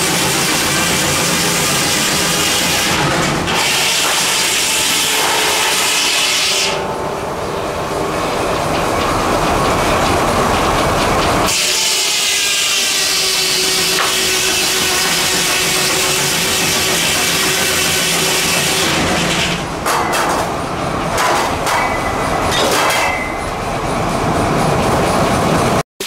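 Antique sawmill driven by a steam traction engine, its saw blade running and cutting through a log with a loud, harsh noise. The harsh part drops away for a few seconds about seven seconds in, then returns.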